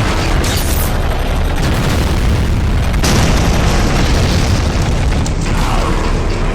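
Explosion sound effects: a continuous deep booming rumble, with fresh blasts hitting about half a second in and again about three seconds in.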